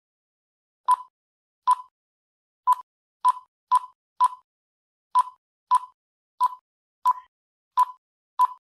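Key beeps from a Quansheng UV-K5(8) handheld radio as its menu is scrolled one item at a time: about a dozen short beeps, all at the same pitch, coming unevenly half a second to a second apart.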